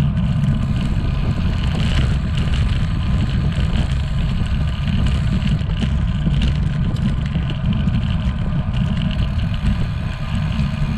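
Wind buffeting the microphone of a camera on a moving bicycle: a steady, loud low rumble, with road noise from the bike rolling over rough asphalt.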